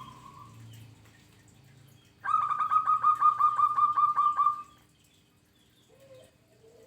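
Zebra dove (perkutut) singing: a fast run of about fourteen short notes at roughly six a second, starting about two seconds in and lasting some two and a half seconds. Fainter single bird notes come before and after it.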